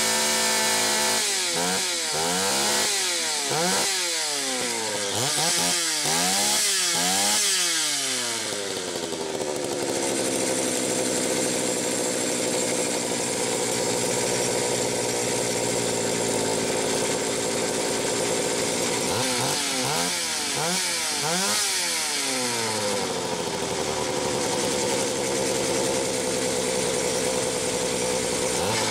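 Homelite 330 two-stroke chainsaw engine running on the bench while its carburetor is being adjusted with a screwdriver. It is revved up and down in quick blips for the first several seconds, runs steadily, revs up and down again about two-thirds of the way through, then settles back to steady running.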